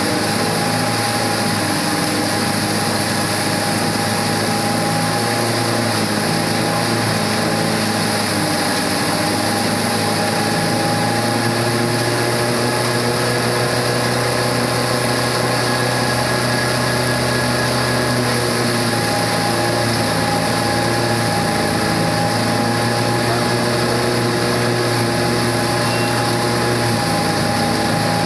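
Paddy straw grinder running steadily while dry straw is fed into it and blown out of the chute as chopped dust: a continuous machine hum and whir under a strong rushing hiss, with slight shifts as the load changes.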